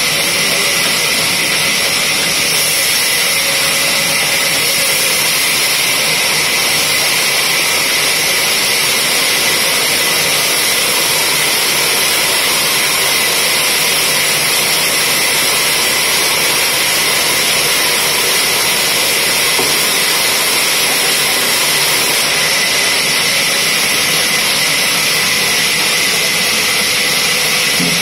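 Horizontal band sawmill running with its blade cutting through a log on the carriage: a loud, steady hiss with no breaks.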